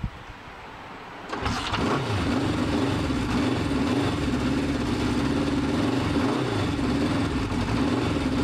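Rebuilt Honda CB500 Four's air-cooled inline-four engine starts about a second in, then runs steadily at idle while the idle speed is being set.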